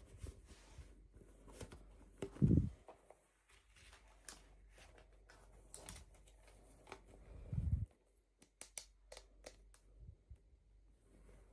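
Hands handling small plastic toy packaging: scattered small clicks and faint crinkling, with two dull thumps about two and a half and seven and a half seconds in.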